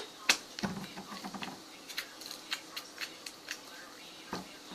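Slime being squished and poked by hand, giving scattered small wet clicks and pops, a few louder than the rest.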